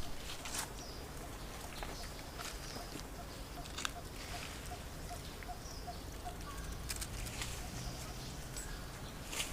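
Quiet outdoor ambience with faint animal calls: a run of about ten short, evenly spaced notes from a few seconds in to past the middle, amid scattered light clicks.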